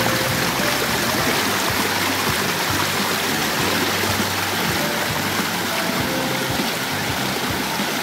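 Steady rush of a mountain stream pouring over rock slides and boulders.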